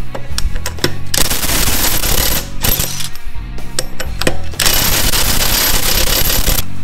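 Makita cordless impact wrench hammering lug nuts loose on a truck wheel: a burst of about a second, then a longer one of about two seconds.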